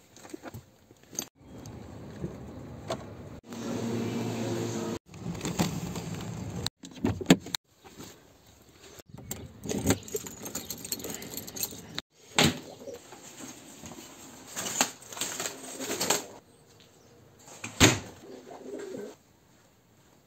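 A key ring jangling as a key is pushed into a door lock and turned, with sharp metallic clicks and rattles. It comes in a string of short clips that cut off abruptly several times, and car sounds come first.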